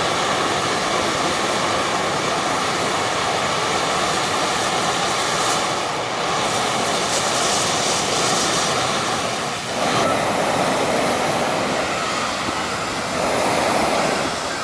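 Steady roar of hot-air balloon inflation: engine-driven inflator fans and propane burners running together, swelling louder about ten seconds in and again near the end.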